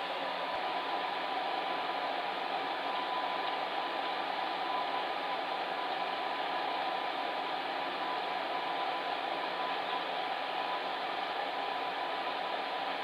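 Electric fan heater running: a steady, even rush of blown air with a faint constant hum.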